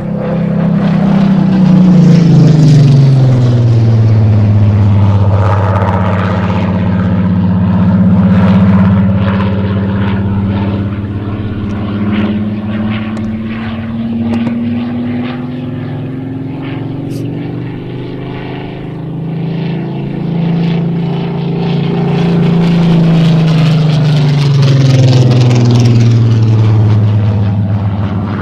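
Supermarine Spitfire's V12 piston engine in a low display pass: its note falls as it goes by about two seconds in, climbs slowly as the aircraft comes round again, and falls once more on a second loud pass near the end.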